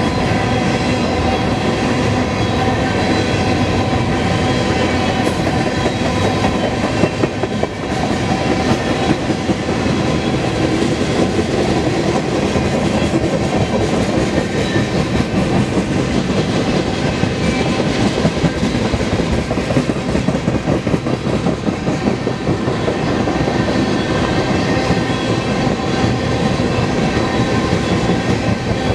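Freight train cars rolling steadily past, wheels clattering over the rail joints, with a few thin steady squealing tones above the clatter.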